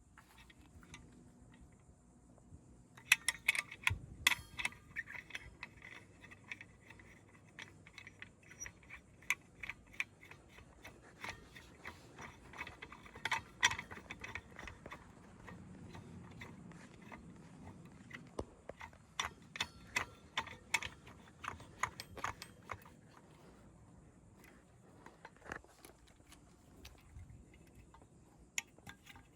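Metal tools and parts being handled: irregular clicks and clinks in bursts, thinning out after about twenty-three seconds.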